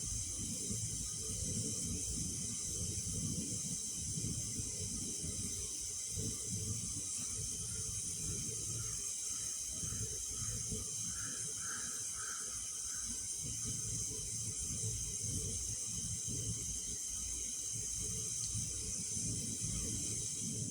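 Pressurised gas escaping with a steady high hiss, over an uneven low rumble.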